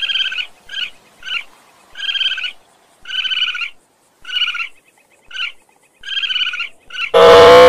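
An animal's short calls repeated about once a second, each under half a second long. About seven seconds in, a much louder, long call with a rising pitch breaks in suddenly.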